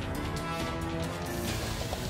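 Closing theme music over the end credits, with a steady beat.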